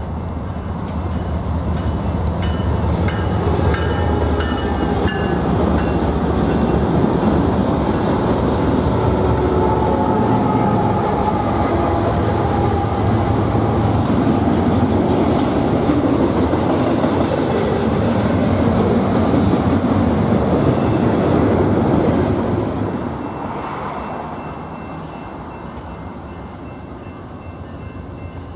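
BNSF freight train passing close by: the diesel locomotives rumble as they approach and go past, then the double-stack container cars roll by with a steady loud rush. The sound drops off about 23 seconds in.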